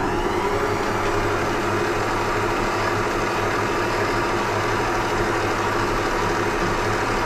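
Electric stand mixer running steadily, its beater mixing cupcake batter in the steel bowl.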